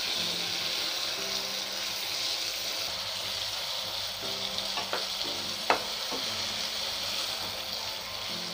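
Sliced tomatoes and onions sizzling in hot oil in a non-stick pan as a spatula stirs them, being fried down until the tomatoes turn mushy. There are two sharp clicks of the spatula against the pan about five and six seconds in.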